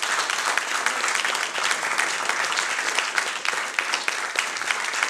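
Audience applause: many hands clapping at the end of a song.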